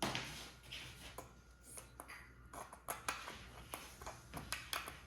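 Faint, irregular small taps and rustles from hands handling slime-making supplies, most likely glitter being shaken and tapped out of its container.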